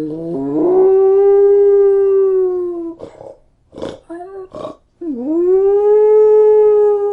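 A dog howling: two long, steady howls, each rising in pitch at the start and sliding down a little at the end, with a few short sharp calls between them around the middle.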